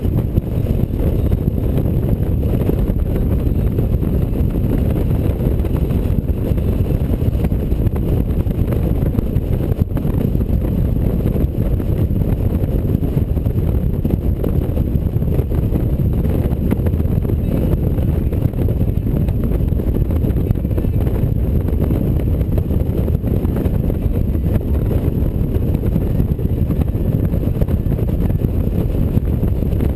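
Touring motorcycle cruising at highway speed: a loud, steady low rumble of wind buffeting the microphone mixed with engine and tyre noise.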